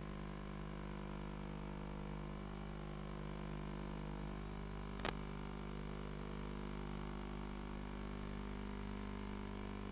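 Steady electrical hum with static hiss, its pitch unchanging, and one sharp click about five seconds in.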